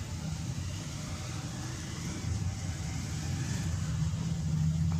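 Steady low hum of a running engine or motor, getting a little louder in the second half.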